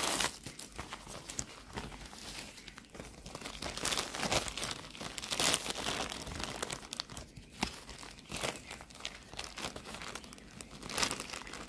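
A parcel's packaging crinkling and tearing as it is opened by hand, in irregular bursts that are loudest about four to five and a half seconds in.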